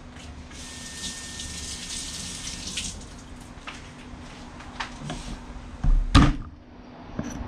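Kitchen tap running for about two seconds, with a faint steady whistle in the flow. It is followed by a few light knocks and a loud thump of something set down near the end.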